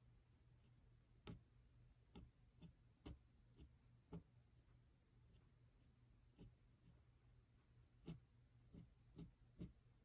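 Faint, irregular scratches and ticks of a metal dip pen nib on paper: about a dozen short strokes.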